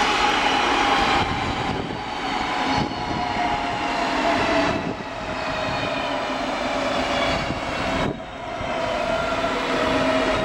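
A DB diesel locomotive hauling a rake of double-deck coaches, its engine running with a whine that slowly falls in pitch as it draws away, over rolling noise from the train.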